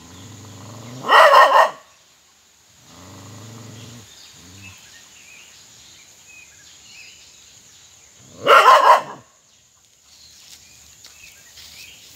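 A dog growling low at a lizard, breaking into a short loud burst of barking about a second in. It growls again briefly, then barks once more near the two-thirds mark.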